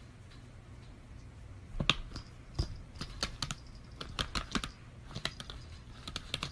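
Light, irregular clicks and taps on a laptop, starting about two seconds in and going on in quick uneven bunches.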